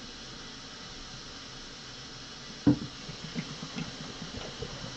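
Water running in a kitchen sink while a plastic carbonation bottle is washed by hand, with one sharp knock a little past halfway, followed by small irregular clatters and splashes.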